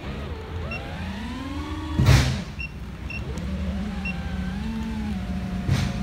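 FPV racing quadcopter's brushless motors and propellers whining, the pitch rising and falling as the throttle changes, heard through the drone's onboard GoPro Hero7 microphone. A brief loud rush of noise comes about two seconds in and again near the end.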